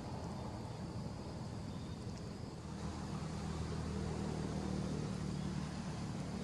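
Steady low engine-like hum, such as a distant motor vehicle running, over a constant background noise.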